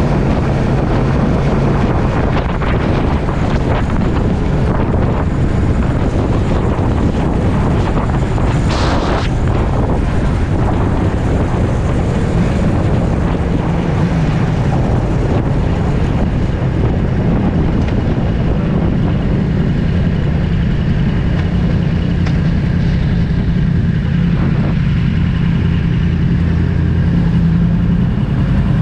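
Motorcycle engine running at steady speed under a heavy rush of wind noise on the camera microphone while riding.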